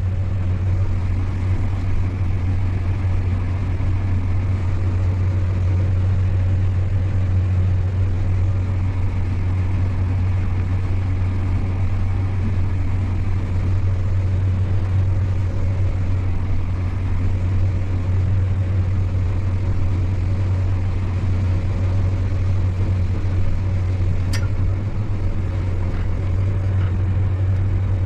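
Combine harvester running steadily while harvesting corn and unloading into a grain cart on the go: an unchanging low drone. A single sharp click near the end.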